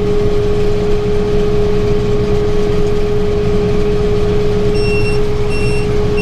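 Tractor and round baler running steadily under load, a low engine rumble with a steady whine over it, while the baler's net wrap cycles. From about five seconds in, an electronic monitor beeps repeatedly, about one and a half beeps a second.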